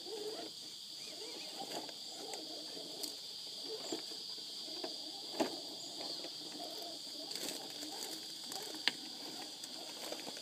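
RC rock crawler's brushed electric motor and gears whining at crawl speed, the pitch wavering with the throttle, with a few sharp knocks of tyres and chassis on rock. A steady high insect drone runs underneath.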